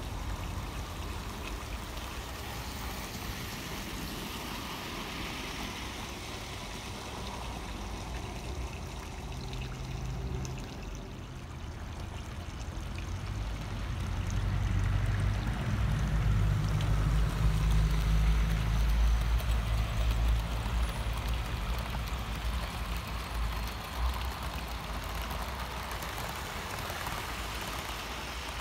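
OO gauge model train running on garden railway track: a low rumble swells as the train nears, is loudest in the middle, then eases. Over it is a steady hiss like running water.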